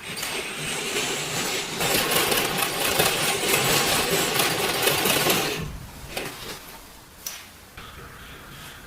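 Restored antique sewing machine running at speed, a fast rapid clatter of the needle mechanism that picks up about two seconds in and stops abruptly a little past halfway, followed by a few sharp clicks.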